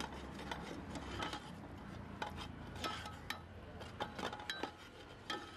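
Long metal ladle stirring and scraping thick masala in a metal cooking pot: faint, irregular clinks and scrapes of metal on metal.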